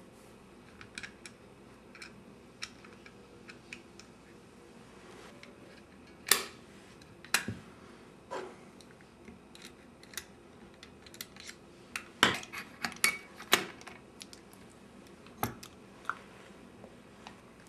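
Small metal parts of a Bolex D8L 8mm film camera clicking and tapping as they are worked by hand. Scattered sharp clicks, with two clusters of louder ones through the middle.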